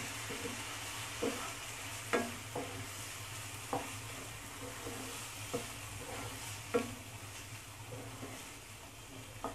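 Spice-coated chicken pieces sizzling in a non-stick frying pan while a wooden spatula stirs and scrapes them, with about six short knocks of the spatula against the pan. The sizzle fades a little near the end.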